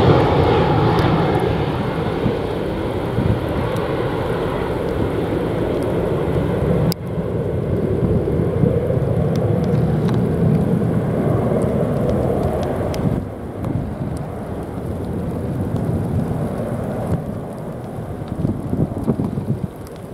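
Storm-force gusting wind buffeting the microphone, a loud, continuous rumble with heavy rain, changing abruptly about seven and thirteen seconds in.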